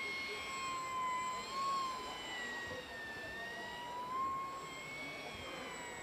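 Radio-controlled Eurofighter model flying by, its motor giving a high whine that drops in pitch about two and a half seconds in and rises again about four seconds in as the throttle changes.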